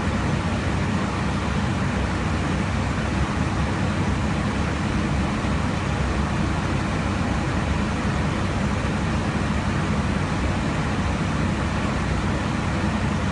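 Steady rushing cabin noise of an aircraft in cruise flight, airflow and engines blended with a constant low hum.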